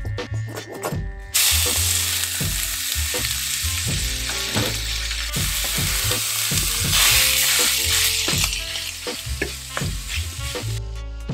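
Spicy ground pork frying in hot oil in a pan: a loud sizzle that starts suddenly about a second and a half in and swells again around seven seconds, as the meat is stirred and broken up with a wooden spatula.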